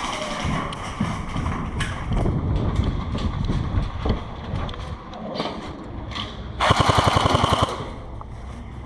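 Airsoft guns firing: scattered single cracks, then about two-thirds of the way in a rapid full-auto burst lasting about a second, the loudest part.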